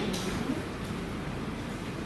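Steady background room noise in a large, busy salon, with a faint undertone of distant voices.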